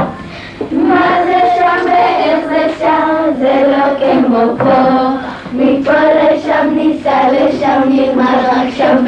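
A group of children singing a song together, in phrases that begin after a brief pause at the start.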